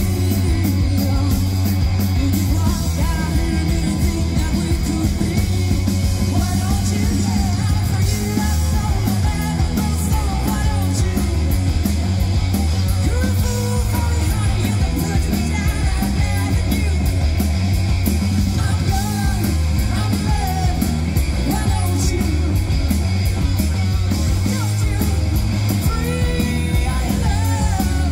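Live rock band playing loud through a PA: electric guitars, bass guitar and drums, with a woman singing lead vocals.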